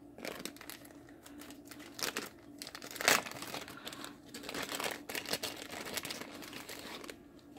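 Crinkling and rustling of wrapping being pulled off a small packaged item by hand, in irregular crackles with a louder one about three seconds in.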